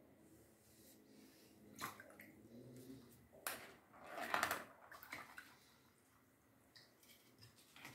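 A paintbrush being rinsed in a jar of water: a couple of light taps, then a short splashy swish about four seconds in.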